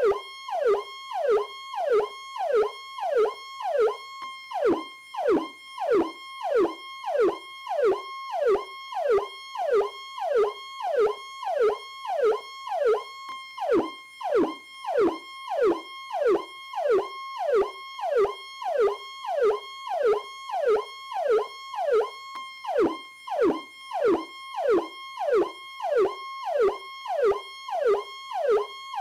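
Powercall electronic police siren sounding a fast repeating cycle, about twice a second. Each cycle is a click and a quick downward pitch sweep, heard over a steady high tone.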